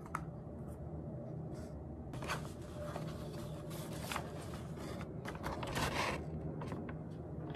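Light scraping and handling noises on a sheet of paper, with a longer paper rustle about six seconds in as the sheet is picked up. A steady low hum lies underneath.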